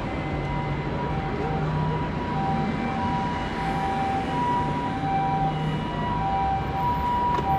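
A Japanese ambulance's two-tone "pi-po" siren, switching between a higher and a lower pitch about every half second, over steady street traffic.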